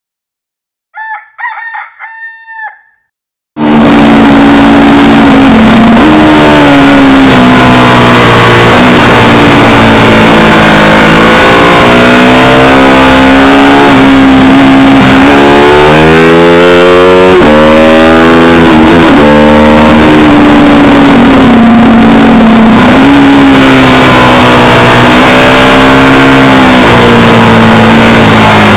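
A rooster crows once over silence near the start. Then a motorcycle engine comes in loud under hard riding, its pitch repeatedly climbing and dropping as it accelerates, shifts and slows for corners, with wind rushing over the microphone.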